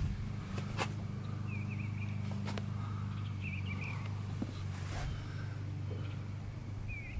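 Pickup truck engine idling with a steady low drone. A bird repeats a short chirping phrase three times over it, and there are three sharp clicks.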